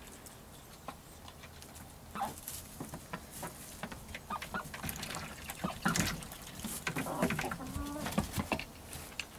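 Hens clucking in a short run of calls, mostly in the second half, over rustling and pecking clicks in the straw bedding.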